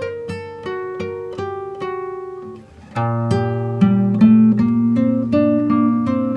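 Background music: a plucked-string melody, note by note, that turns fuller and louder about three seconds in.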